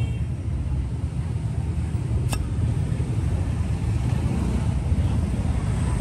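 Steady low rumble of passing road traffic, with one sharp click about two seconds in.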